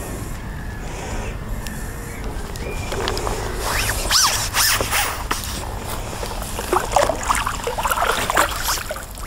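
Water splashing and handling noises at a pond's edge over a steady low wind rumble on the microphone, the splashes and rustles coming irregularly from about three seconds in.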